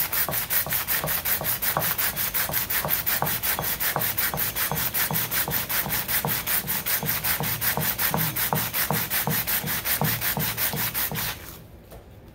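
A chromatic harmonica slider rubbed back and forth by hand on a sheet of sandpaper laid flat, in quick, even sanding strokes that take material off its underside. The strokes stop about eleven seconds in.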